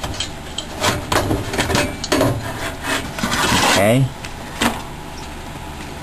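Clicks, knocks and a short scrape of metal and plastic as the hard-drive bracket of a Compaq Presario SR5010NX desktop is unclipped and pulled up out of the case, with the longest scrape about three and a half seconds in.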